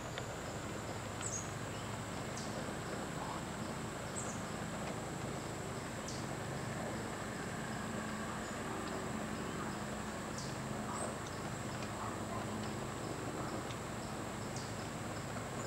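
Insects chirping in the woods: a steady high drone with a faint even pulsing and short high chirps every second or two, over a steady hiss.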